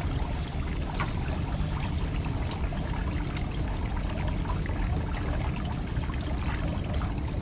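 Steady pouring, trickling water with a low rumble underneath and a few faint clicks.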